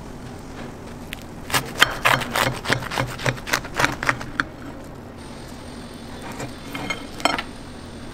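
A knife sawing through a fried chicken burger's crispy breaded coating: a quick run of crunches for about three seconds, then a few more near the end.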